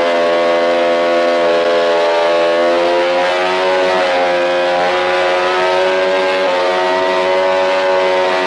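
Motorcycle engine running at steady, fairly high revs, its pitch wavering slightly up and down.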